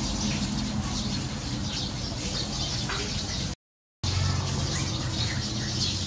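A flock of Eurasian tree sparrows chirping in a dense, continuous chatter over a low steady hum. All sound cuts out completely for about half a second a little past the middle.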